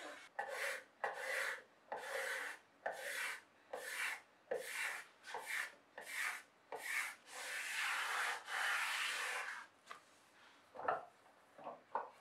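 Card scraper shaving along a gum wood rail in quick, even strokes, about one and a half a second, then two longer strokes past the middle, with a few light knocks near the end.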